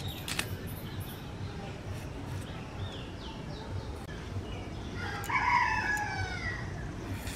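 A rooster crowing once, about five seconds in, a single call of over a second that falls in pitch toward the end. Small bird chirps come before it, and there are a couple of sharp clicks right at the start.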